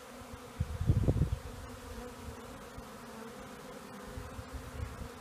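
Swarm of honeybees flying around a swarm box: a steady, even hum. A brief low rumble about a second in is louder than the hum.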